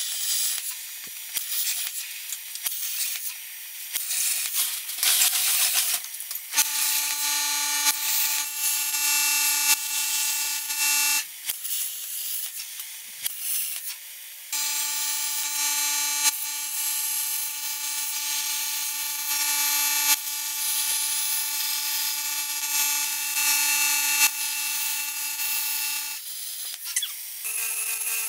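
CNC plasma cutter torch cutting steel plate: a crackling hiss, then a steady whine over the hiss, which stops for about three seconds midway and starts again. A bench belt grinder starts grinding metal near the end.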